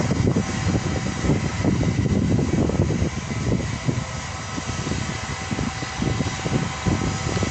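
Wind buffeting the microphone, an uneven low rumble that swells and dips, with a few faint steady high tones underneath.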